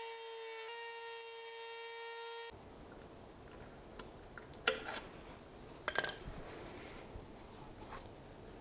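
Dremel rotary tool with a cutoff wheel whining steadily at high speed as it cuts through a spring hose clamp, dipping slightly in pitch once, then stopping abruptly about two and a half seconds in. A few sharp metal clicks follow as the cut clamp is pried off with a screwdriver.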